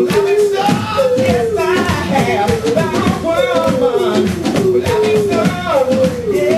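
Live blues-rock band playing: electric guitar with bending, wavering notes over a drum kit, and a man singing.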